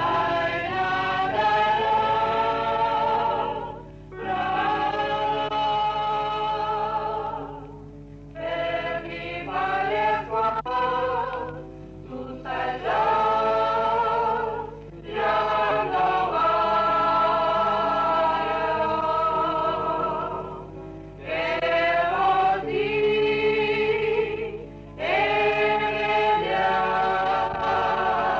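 A choir of voices singing a religious hymn, in sung phrases of a few seconds with short breaks between them.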